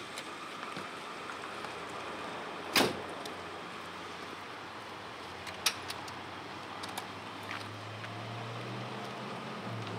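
Doors of a conversion van being worked: one loud thud about three seconds in as a door shuts, then a few lighter clicks of handles and latches as the rear doors are opened. A low steady hum comes in near the end.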